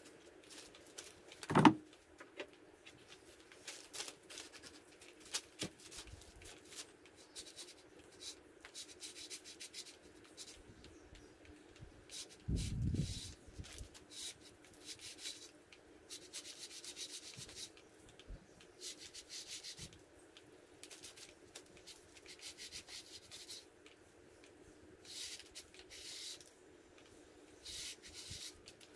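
Long-handled brush scrubbing out the lifter bores of a 5.3 L LS engine block wet with degreaser: repeated short rasping strokes. A sharp knock about a second and a half in is the loudest sound, and there is a duller thump about halfway through.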